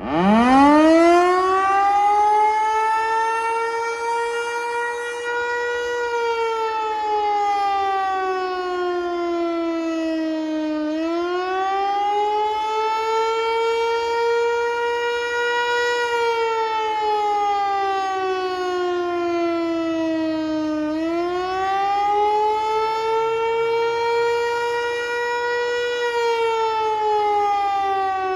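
Federal Signal Eclipse 8 electronic outdoor warning siren being tested, sounding a wail: it starts up with a fast climb in pitch, then holds and slides slowly down and back up again about every ten seconds. The tone is rich in overtones and stays at an even loudness.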